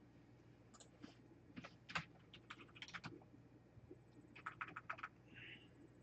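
Faint typing on a computer keyboard: irregular runs of key clicks, with a quick burst of keystrokes about four and a half seconds in.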